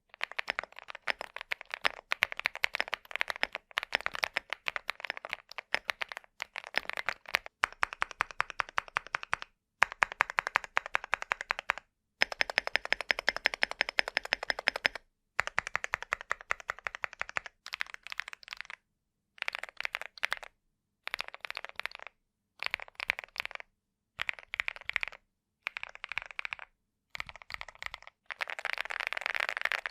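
Typing on a CIDOO V75 Plus mechanical keyboard in its CNC aluminum case: a thocky clatter of keystrokes. Fast continuous runs come first, then shorter bursts of keystrokes broken by brief silences.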